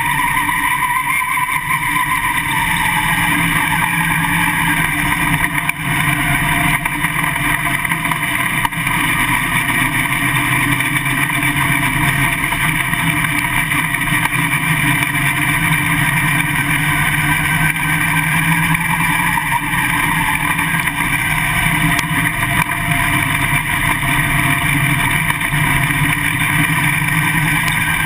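Winged dirt late model's V8 engine running steadily at low revs, heard from inside the cockpit. Its note drops over the first few seconds, then holds level.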